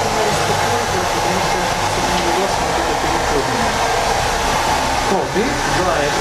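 Hand-held hair dryer running steadily, blowing on a client's short hair as it is moved around his head, with a brief slight dip about five seconds in.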